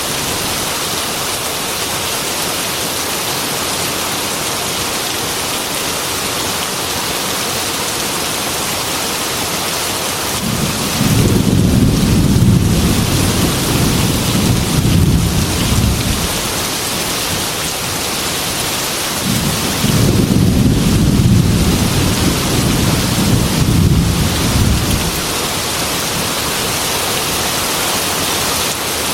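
Heavy rain falling steadily on a metal roof, with two long, low rolls of thunder, one just before the middle and one in the second half.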